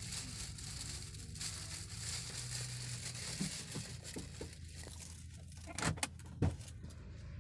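Steady low road-and-engine rumble inside a moving car, with hiss and some rustling, and two short knocks about six seconds in.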